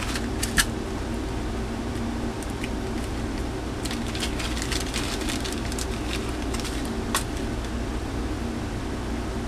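A steady low machine hum with a few light clicks, a small cluster of them about four to five seconds in.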